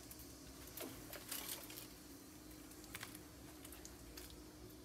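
A few faint, light taps and scrapes around a clay mortar (cobek) of freshly ground sambal with its stone pestle, over a low steady hum.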